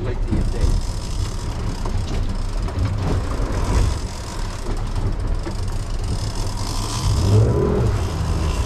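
Outboard motors of a sport-fishing boat running at sea, a steady low rumble with the wash of water and wind noise over it.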